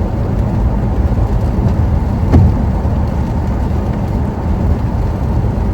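Steady low rumble of a car driving, as heard inside the cabin, with one short knock about two and a half seconds in.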